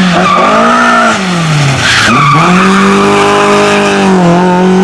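Rally car engine held at high revs, its pitch dropping sharply twice and then holding steady, with tyres squealing and skidding on the stage.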